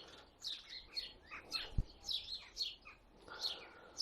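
Songbirds chirping, a quick run of short high notes that each fall in pitch, with a single low knock a little under two seconds in.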